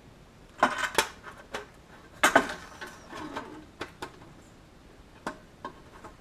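Thin aluminium sheet-metal parts clanking and clicking against each other as they are handled and fitted together, in a run of irregular knocks with the loudest clatter about two seconds in.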